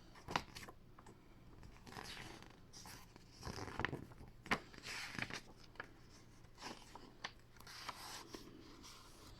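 Quiet paper rustling and scattered small clicks from a picture book being handled, its page turned.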